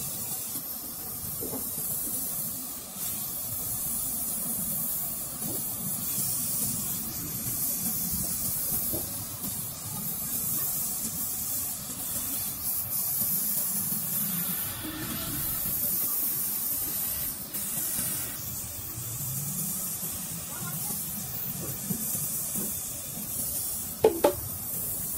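Gas welding torch flame hissing steadily as it is played over a lead-acid battery's lead cell straps, melting the lead to join the plates. Two sharp clicks come near the end.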